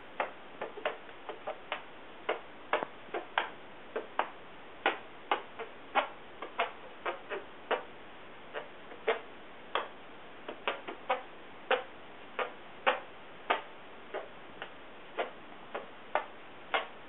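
Cupped hands squeezed together making short, sharp hand-fart pops at an uneven pace, roughly one to two a second, some louder than others.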